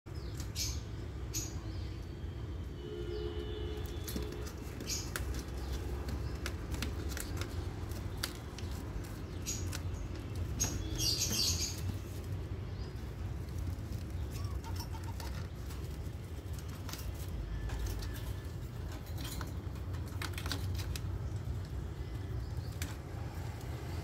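Rose-ringed parakeet's claws and beak clicking and rattling irregularly on the wire bars of a cage. A few brief faint chirps come through, and a louder raspy burst comes about eleven seconds in, over a low steady rumble.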